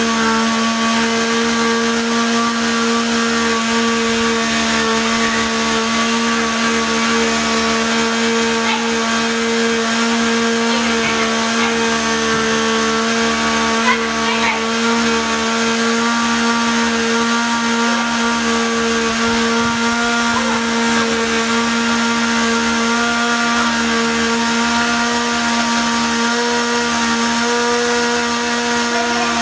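A small motor running steadily at one unchanging pitch, a loud even hum.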